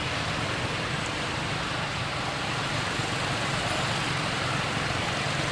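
Steady road-traffic noise: an even, unbroken rumble and hiss with no single vehicle standing out.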